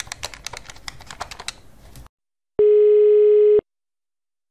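Buttons of a push-button telephone clicking rapidly as a number is dialled, then after a short pause a single steady telephone tone lasting about a second: the ringing tone of the call going through.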